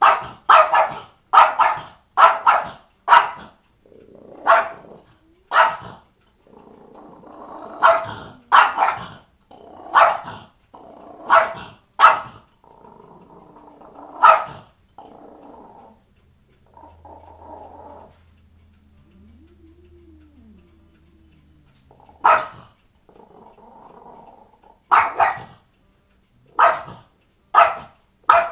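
French bulldog barking in bouts of sharp single barks, about twenty in all, with low growling between them. The barking pauses for several seconds in the middle before starting again.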